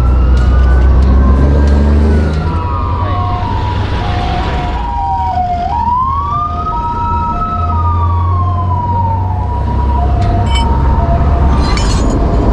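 Emergency vehicle sirens: a wailing siren sweeping slowly up and down, joined about three seconds in by a hi-lo two-tone siren alternating about twice a second, over a steady low engine drone.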